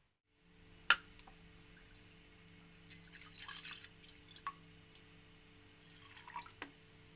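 Milk pouring in a thin stream into a stainless steel saucepan, splashing and dripping, busiest in the middle and again near the end. A single sharp click about a second in, over a steady low hum.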